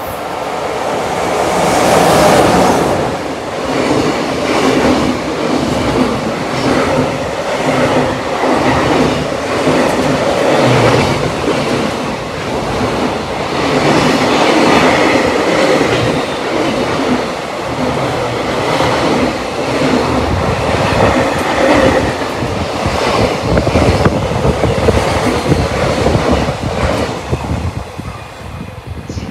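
JR Freight EF66 electric locomotive passing through the station at speed, loudest as it goes by about two seconds in. A long string of container wagons follows with a steady rattle and clickety-clack of wheels over rail joints, fading as the last wagon passes near the end.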